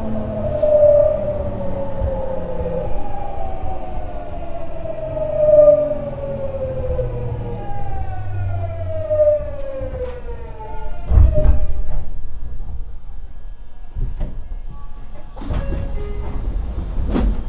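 Tokyu 9000 series train's Hitachi GTO-VVVF inverter and traction motors whining under regenerative braking, the tones falling steadily in pitch as the train slows, heard inside the passenger car. The whine cuts out about ten seconds in as the train comes almost to a stop, followed by a few knocks and clunks.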